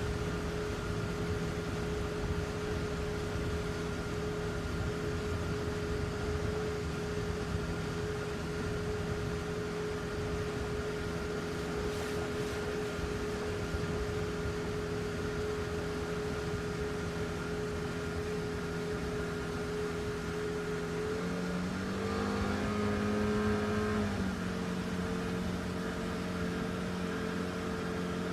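Boat engine running at a steady idle, revved up briefly about three-quarters of the way through, then settling back to idle.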